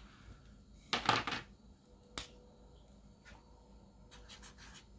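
Spectra AD marker being picked up and used: a short swish about a second in, a single click just after two seconds, then a few quick, faint, scratchy strokes of the marker tip on paper near the end.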